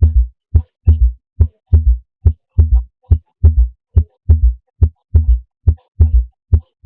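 Recorded heart sounds in a gallop rhythm: low thumps in repeating groups of three, a little faster than once a second. The extra third sound in each beat is an S3 or S4 gallop.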